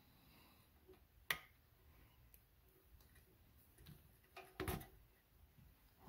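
Hand-held wire stripper stripping insulation off a thin wire, mostly near silence: one sharp click a little over a second in, then a few fainter clicks about four to five seconds in.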